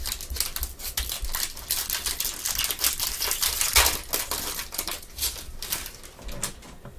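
Trading cards handled and shuffled by gloved hands: a quick run of clicks, taps and rustles that thins out near the end.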